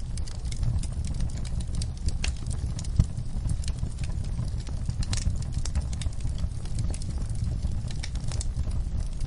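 Wood fire crackling in a fireplace: a steady low rumble of flames with frequent sharp pops and snaps, one louder pop about three seconds in.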